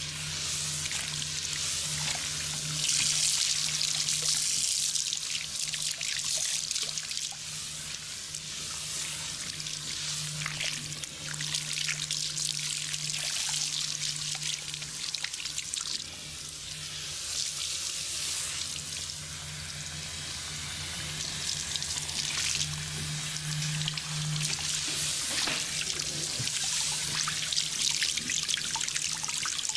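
Tap water running and splashing into a sink, swelling and easing as the flow is moved about, over a steady low hum.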